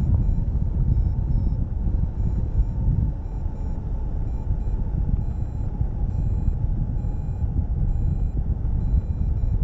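Wind buffeting the microphone of a camera on a hang glider in flight: a loud, steady rumble. Through it, a variometer gives faint short beeps, repeated quickly and shifting in pitch, its signal that the glider is climbing in lift.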